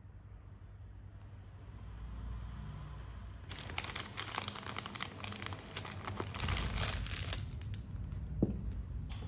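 Plastic piping bag full of cake batter crinkling as hands gather and twist its top, starting about three and a half seconds in and lasting about four seconds.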